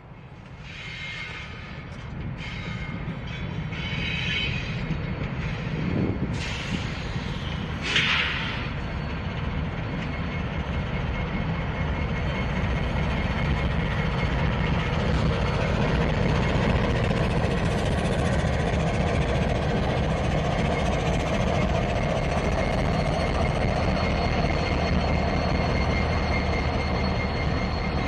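Norfolk Southern diesel locomotives running light past at close range: a deep engine rumble that builds over the first dozen or so seconds, then holds steady with a thin high whine over it. There is a brief sharp clank or screech about eight seconds in.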